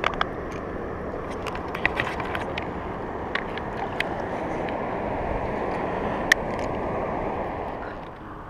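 Shallow water sloshing and splashing against shoreline rocks as hands and a plastic fish lip grip are dipped in it, with many small sharp splashes and drips. The sound drops away near the end.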